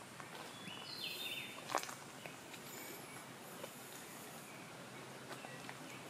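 Rainforest ambience: a steady background hiss with footsteps on the forest floor, the loudest step just under two seconds in, and a brief high animal call about a second in.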